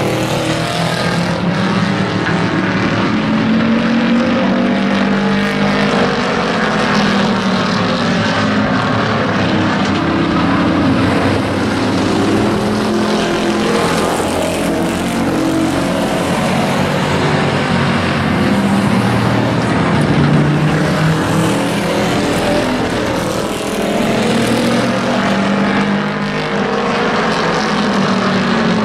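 A field of hobby-class pickup race trucks running together around the track, many engine notes overlapping and rising and falling as the trucks lap.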